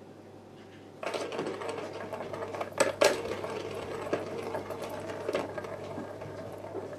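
Plastic balls rolling and rattling around the tracks of a tiered cat ball-track toy as kittens bat at it, starting about a second in and running steadily, with two sharp knocks close together about three seconds in.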